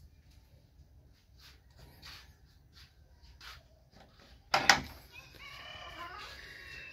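A wooden door's sliding metal barrel bolt is drawn back with a sharp clack about four and a half seconds in. A drawn-out high-pitched squeal follows for about a second and a half as the door opens.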